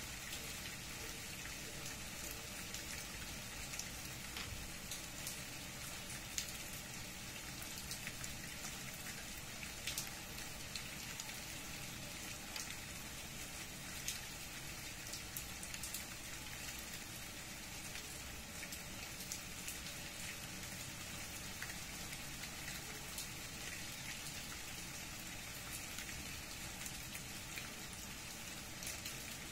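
Steady rain falling through tree leaves onto the ground, with individual drops ticking close by at irregular moments.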